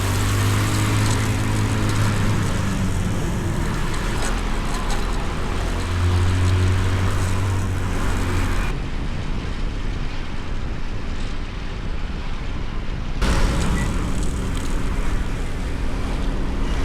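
Road traffic noise with a steady low engine hum that sounds for the first few seconds and again around the middle. Past the middle the sound turns dull for about four seconds, switching abruptly to and from that muffled stretch.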